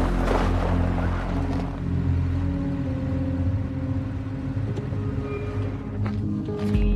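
Film score of low, held synth notes that shift in steps, over the low rumble of a car's engine. A broad hiss in the first couple of seconds fades as the car settles.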